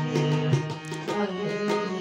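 Harmonium playing a melody of held reed notes, with tabla strikes keeping a quick rhythm beneath it.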